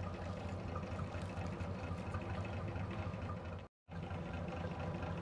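A steady low engine hum, with the sound cutting out completely for a moment about three and a half seconds in.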